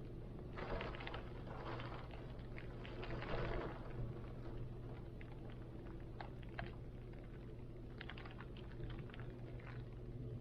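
Rain and wind: scattered drops tick and tap over a steady low rumble, and a gust swells up from about half a second in and dies away by about four seconds.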